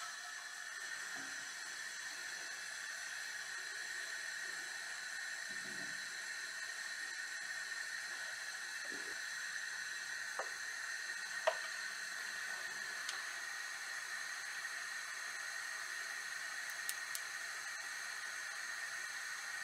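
Steady, even hiss, with a few light taps about halfway through.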